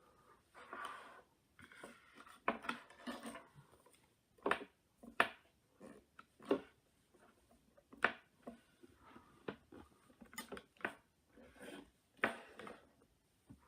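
Small parts and tools being handled during iPad 2 reassembly: irregular light clicks and taps, roughly a dozen, with brief rustling between them.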